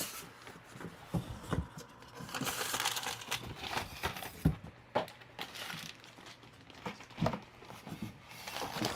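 Packaging crinkling and rustling as it is handled, with scattered light knocks.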